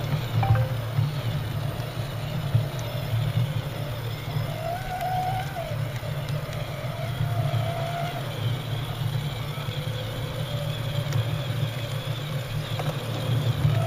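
Whine of RC scale crawler trucks' small electric motors and gearboxes as they drive, the pitch rising and falling with the throttle over a steady low hum.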